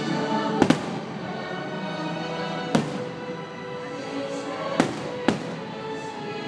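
Aerial firework shells bursting: a quick double bang just under a second in, another nearly three seconds in, and two more close together later, with the fireworks show's music playing steadily underneath.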